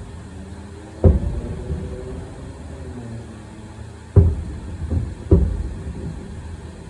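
Fireworks shells bursting: four deep booms, each with a rumbling tail, the first about a second in and three more close together a little after four seconds.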